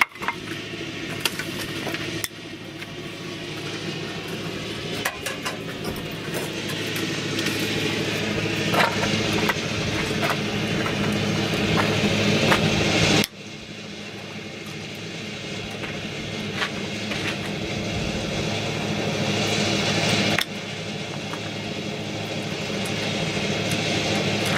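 An engine running steadily nearby, a hum that swells gradually and breaks off abruptly several times, with a few light clicks over it.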